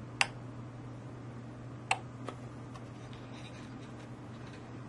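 Two sharp clicks about 1.7 seconds apart from the small relay on a 12 V cycle timer relay module, switching the soldering iron's outlet on for one 1.7-second pulse and off again; a fainter click follows. A faint steady hum sits underneath.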